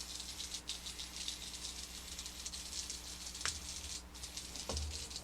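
Small battery-powered HexBug Junk Bot running along a surface, its vibrating motor giving a rapid, steady rattle, with a couple of louder knocks in the second half.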